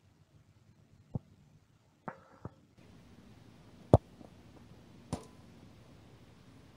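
A football struck hard by a boot, a single sharp thud, the loudest sound, about four seconds in. It is preceded by a few lighter knocks and followed about a second later by another sharp impact with a faint ring.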